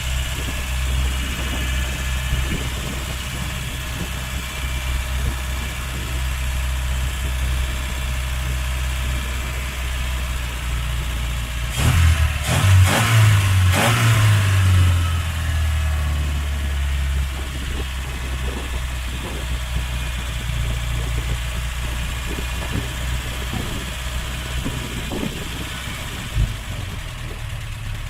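Skoda car engine running steadily; about twelve seconds in its pitch rises for a few seconds, with a few knocks, then settles back.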